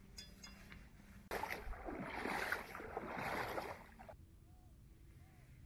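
Footsteps splashing and sloshing through shallow water for about three seconds, starting and stopping abruptly.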